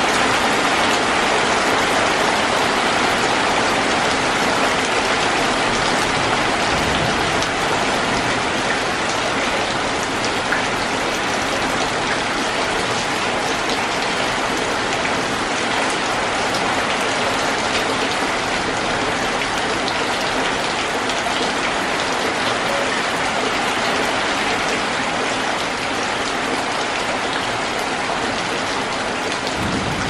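Heavy rain pouring down, a dense steady hiss of countless drops on leaves, roofs and ground, easing slightly over time.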